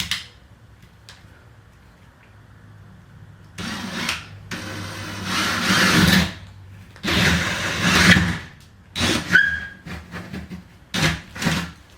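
Handheld power tool run in several short bursts of about a second each, with pauses between, working into a wooden door.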